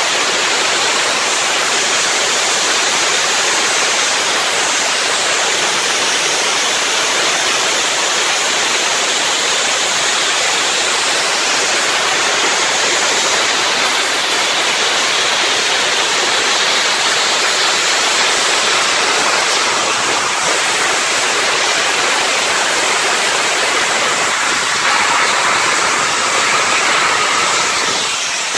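Union Pacific Big Boy 4014 steam locomotive's cylinder cocks blowing steam in a loud, steady hiss.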